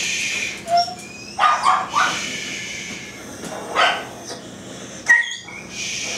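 A dog barking several short times in separate bursts.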